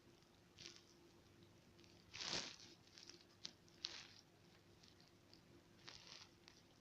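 Faint rustling with a few soft clicks; the loudest rustle comes about two seconds in and a softer one near the end.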